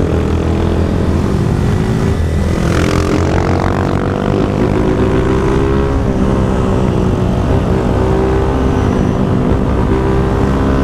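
Honda CG 160 Titan's single-cylinder engine pulling under throttle, heard from the rider's seat with wind rumble on the microphone; its note climbs slowly as the bike speeds up. A hiss swells and fades about three seconds in, and the level dips briefly about four seconds in.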